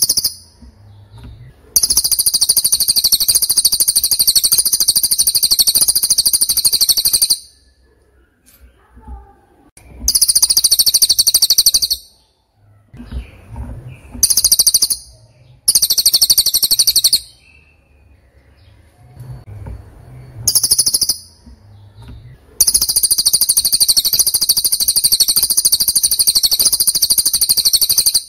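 A bird singing in repeated bouts of a very fast, high-pitched trill. There are two long trills of about five seconds, one starting about two seconds in and one near the end, and several short ones of one to two seconds between them.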